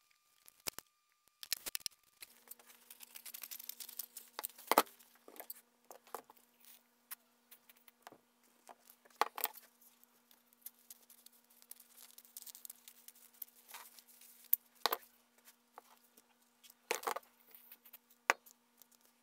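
Nylon umbrella fabric crinkling and rustling as it is handled and pressed down on a workbench, with scattered sharp clicks and taps. A faint steady hum comes in about two seconds in.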